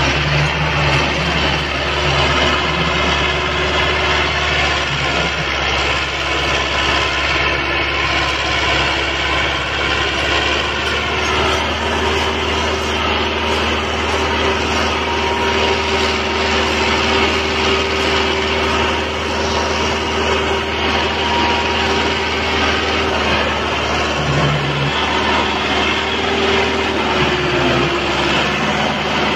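Massey Ferguson 385 tractor's four-cylinder diesel engine running steadily while the tractor pulls a loaded trolley.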